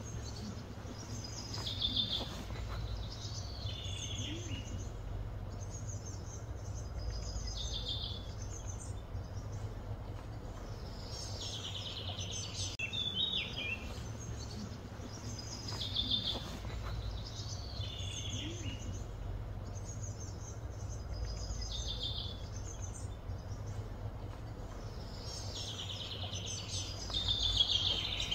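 Birds chirping and calling in short, high phrases that repeat every couple of seconds, over a steady low background rumble.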